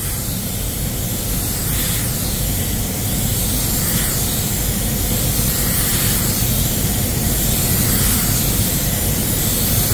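Walcom Slim X Light 1.3 paint spray gun hissing steadily as compressed air atomises water-based basecoat, with the fan fully open.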